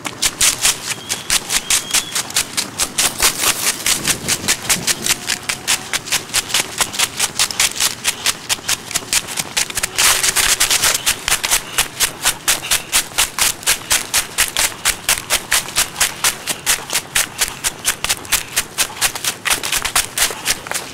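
Running footsteps crunching through dry fallen leaves in a quick, steady rhythm of about three to four steps a second, with a louder rustle about halfway through.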